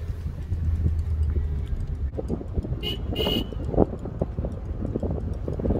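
A car driving on a road: a steady low engine and road rumble. From about two seconds in, wind buffets the microphone as the phone is held out of the car window. A brief high-pitched tone sounds near the middle.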